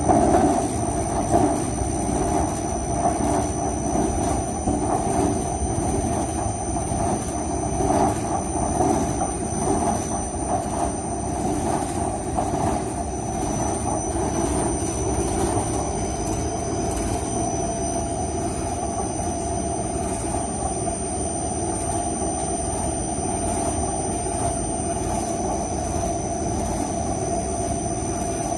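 ERP 900 compressor wrecker, a machine for cutting open sealed fridge compressors, running with a continuous mechanical noise and a thin, steady high whine. The noise is rough and uneven for the first half, then settles into an even drone.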